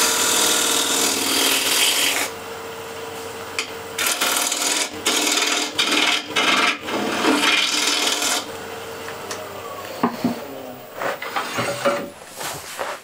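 Bowl gouge cutting the foot of a wooden bowl spinning on a wood lathe, peeling off continuous shavings in two long passes with a short pause between them, while the lathe hums steadily. Near the end the cutting stops and there are a few separate knocks.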